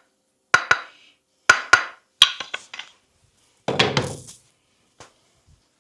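Hands tapping and slapping on a head during a head massage: sharp claps, mostly in quick pairs, then a longer, fuller slap about four seconds in.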